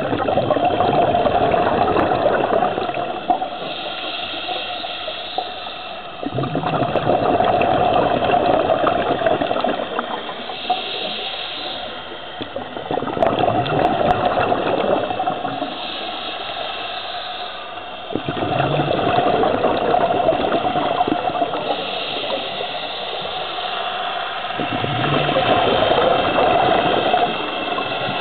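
A scuba diver breathing through a regulator underwater. Long bubbling exhalations alternate with quieter hissing inhalations, about five breaths, one every six seconds or so.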